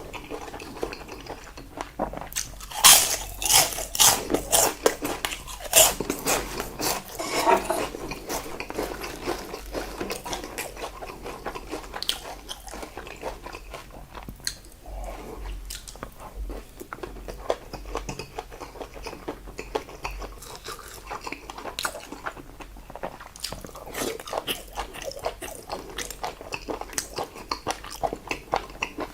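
Close-miked eating sounds: a person biting and chewing salted seafood jeotgal, a run of wet smacks and crunchy clicks, loudest for a few seconds near the start and then steady, softer chewing.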